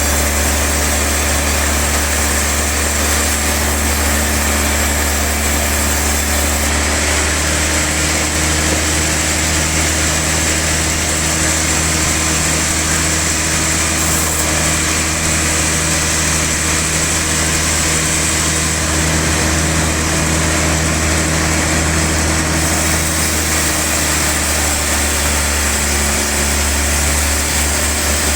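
Sawmill log-sawing machinery running steadily with a low engine-like hum, its tone shifting slightly about seven seconds in and again a few seconds before the end.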